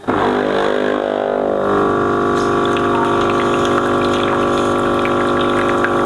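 Jura ENA 4 automatic coffee machine's water pump humming steadily as it pushes water through a newly fitted water filter during the filter rinse, with water running from the spout. The hum shifts to a higher, fuller tone a little under two seconds in.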